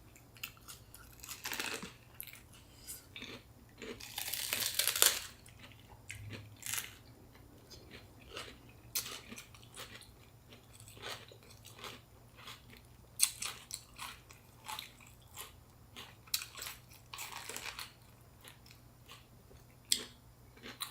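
Close-miked chewing and crunching of fresh spring rolls filled with raw vegetables such as lettuce, cucumber and bean sprouts, in irregular bites and smacks, with a longer, louder crunching burst about four seconds in.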